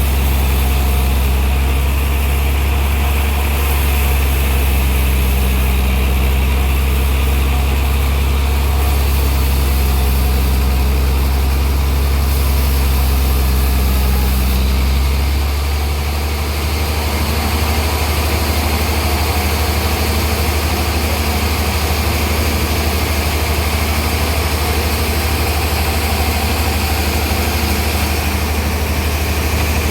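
A sawmill's engine running steadily with a deep low hum; about halfway through its low note changes and it gets slightly quieter.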